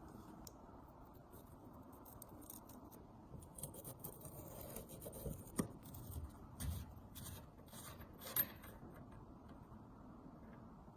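Light clicks, taps and scrapes of hand work on small metal parts, with two sharper clicks about five and a half and eight and a half seconds in.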